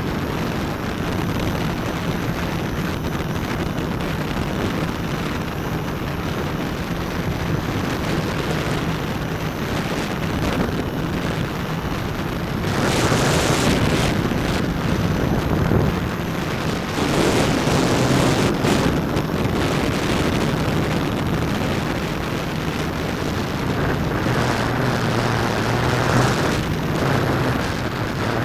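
Hexacopter's six electric motors and propellers humming steadily, heard through its onboard keychain camera's microphone, with wind buffeting the microphone in gusts that swell louder about halfway through and again a little later.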